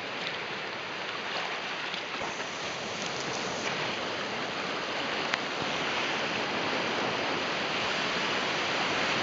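Shallow surf washing and foaming around a wader's legs at the water's edge: a steady rush of breaking waves that slowly grows louder. A single brief click about five seconds in.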